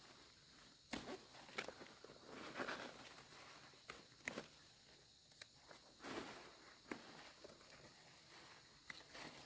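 Faint scattered sharp clicks and short rustles at uneven intervals, the sound of someone moving about and handling things.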